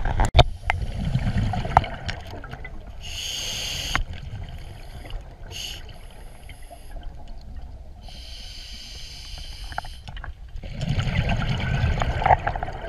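Scuba regulator breathing underwater: exhaled bubbles bubbling in the first two seconds and again near the end, with hissing inhalations through the regulator in between.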